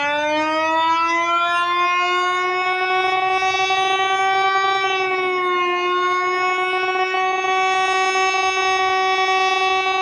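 Eclipse 8 outdoor warning siren sounding a test tone. Its loud, many-toned wail climbs in pitch over the first few seconds, dips briefly about five and a half seconds in, then holds steady.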